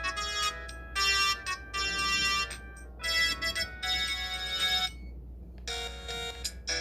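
Samsung SPH-M300 phone playing one of its ringtones: an electronic melody of quick notes. It breaks off about five seconds in, and a short phrase sounds again near the end.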